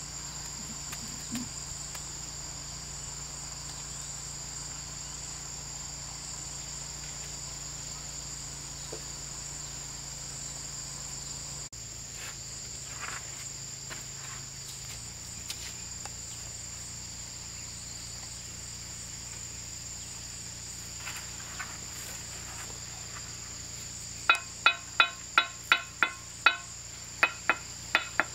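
A steady, high-pitched insect chorus. Near the end, a run of about a dozen sharp, ringing knocks, about three a second, much louder than the insects.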